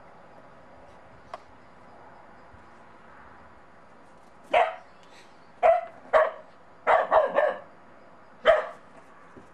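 Bedlington terrier puppy barking at an unfamiliar snowman: about seven short barks starting about four and a half seconds in, with three in quick succession near the middle.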